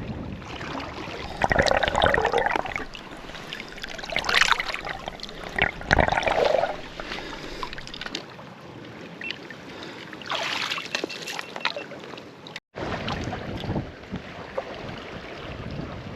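River water running and splashing, with a few louder surges of splashing. The sound cuts out for a moment about three-quarters of the way through.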